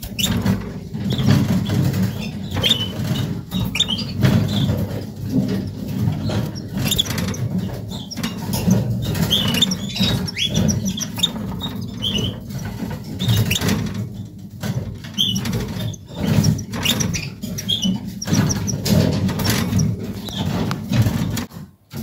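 Harlequin Portuguese canaries at the nest: short, high chirps and cheeps come again and again over close, continuous rustling and knocking from wingbeats and nest material near the microphone.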